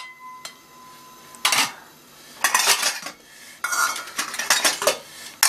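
Metal bowls and plates clattering as they are handled and stacked on a counter. A clink at the start leaves a ringing tone for about a second and a half, followed by three bursts of clattering.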